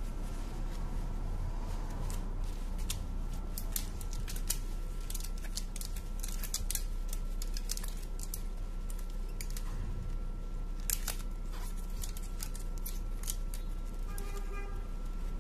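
Scattered small clicks and rubbing as gloved hands handle a smartphone bound with rubber bands, over a steady low hum.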